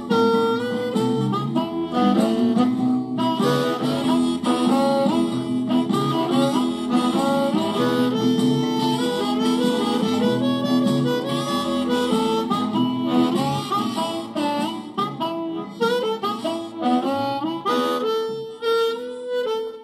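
Hohner blues harmonica amplified through a Shure Green Bullet microphone and a Boss Katana Mini amp set to crunch, giving a distorted tone. It plays a blues line of quick runs of short notes.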